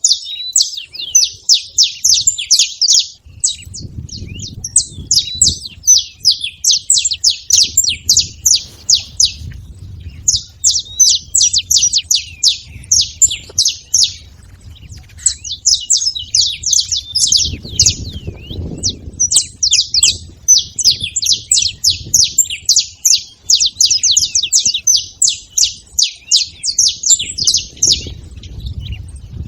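Several saffron finches calling together in fast, dense runs of high chirps, broken by short pauses between bouts. A faint low rumble swells underneath at times.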